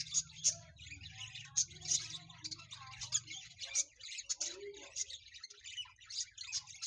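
Lovebirds chirping: a dense, continuous run of short high-pitched calls, several a second.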